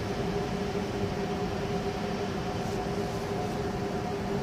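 SBB Re 460 electric locomotive running at the platform: a steady electric hum with two steady tones over a low rumble.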